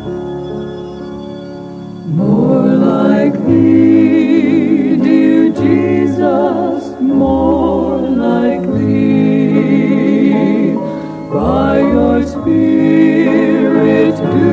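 Background music: sustained keyboard chords, joined about two seconds in by singing with a wavering vibrato.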